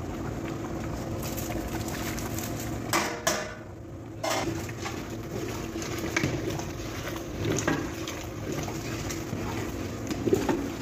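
Long metal spatula stirring a large steel cooking pot of simmering chicken gravy, scraping and knocking against the pot a few times, loudest about three to four seconds in, over a steady low hum.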